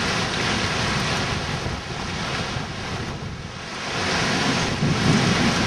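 Storm wind gusting hard with rain, buffeting the microphone; it eases about three seconds in, then builds again with a heavier low rumble near the end.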